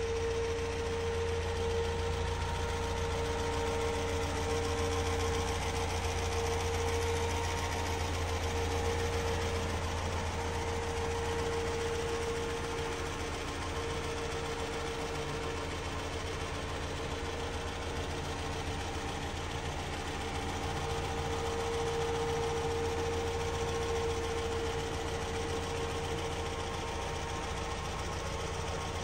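The 2.25-litre four-cylinder petrol engine of a 1972 Land Rover 88 Series III running steadily at an even speed, with no revving.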